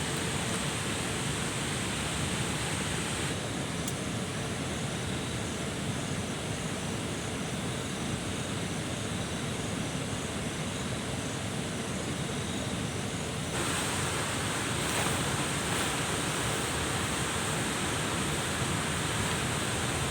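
A steady rush of water, with a faint high chirping repeating about twice a second through the middle.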